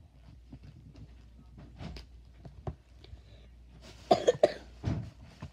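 A person coughing several times in quick succession about four seconds in, then once more just before five seconds, after a stretch of faint clicks and rustling.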